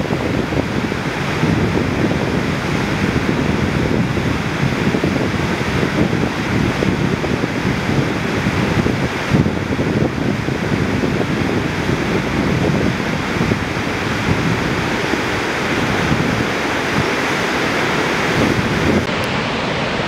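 Gariep (Orange) River whitewater rushing steadily through a narrow channel between granite boulders, a continuous loud churn with no let-up.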